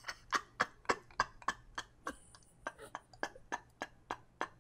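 A man laughing hard but nearly silently: short breathy puffs of air, about three a second, in a steady rhythm.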